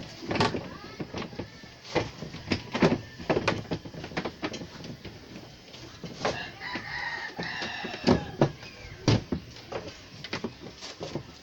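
Irregular knocks and clicks of washing machine body panels and parts being handled and fitted back together. About six seconds in, a rooster crows once in the background.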